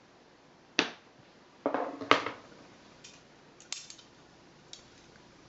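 Plastic food-container lid coming off with a sharp click, then clattering as it is set down on the table, followed by a few lighter plastic taps.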